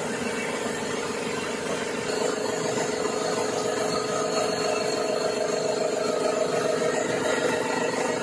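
Stone-cutting circular saw running, its water-cooled blade cutting along the edge of a white marble slab: a steady machine hum and grinding that gets a little louder about two seconds in.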